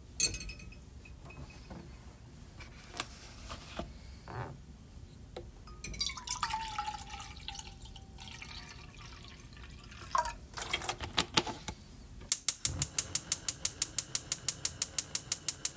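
Household handling sounds: scattered clicks and knocks, liquid pouring or running for a second or two around a third of the way in and again later, then a fast, even run of sharp clicks, about eight a second, near the end.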